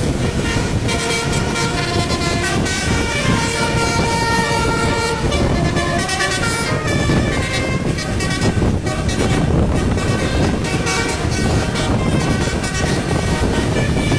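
A bus's basuri musical air horn playing a melody, several horn tones sounding together and changing note in quick steps, over the bus's running noise.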